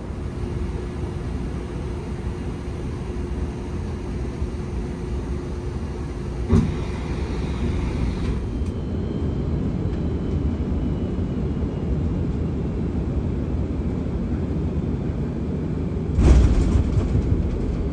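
Airbus A330 cabin noise during descent for landing: a steady low rumble of engines and airflow, broken by a short sharp thump about six and a half seconds in and a heavier, deeper thump near the end.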